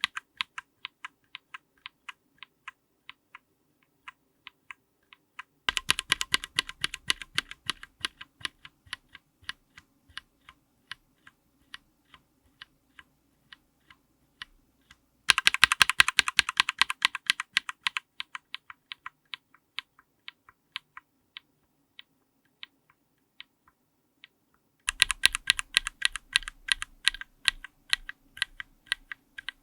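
Linear mechanical keyboard switches under a GMK keycap being pressed, one switch at a time, recorded close up. Each test opens with a quick flurry of keystrokes, then single presses that slow down, and the sound changes to a new switch three times.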